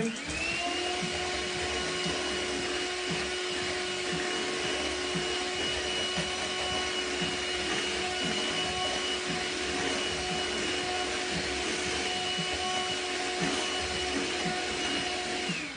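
Electric hand mixer running steadily with its wire beaters whipping ice cream mix in a glass bowl: a constant motor whine over the whir of the beaters. The motor spins up right at the start and winds down just before the end.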